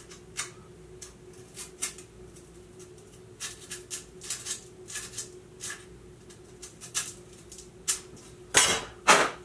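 Short, separate strokes of 150-grit sandpaper on a card scraper rubbing the flat face of a combination square's fence, in an uneven rhythm with pauses, with two louder rasps near the end. The sanding takes down a high spot on the fence of a square that is open past 90 degrees, to bring it back to square.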